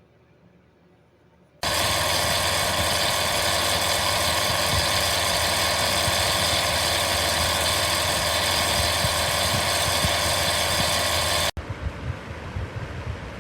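A loud, steady machine noise, a rushing hum with a few constant tones in it. It starts abruptly about a second and a half in and cuts off suddenly near the end, leaving a quieter rumble with low knocks.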